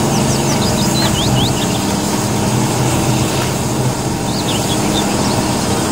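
John Deere tracked excavator's diesel engine running steadily while its grapple works, with a few short bird chirps near the start and again about two-thirds of the way through.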